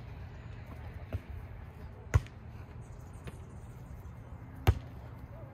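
A volleyball struck by players' hands during a rally: two sharp slaps about two and a half seconds apart, with a fainter tap about a second in, over a low steady background rumble.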